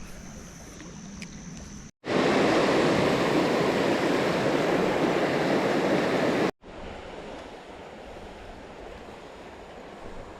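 Creek water rushing steadily. Two abrupt cuts break it, and between them, from about two to six and a half seconds in, the rushing is much louder.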